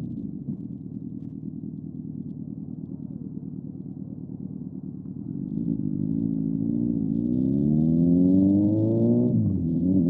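Motorcycle engine running low and steady, then accelerating with its pitch climbing; near the end the pitch drops sharply and climbs again, as at a gear change.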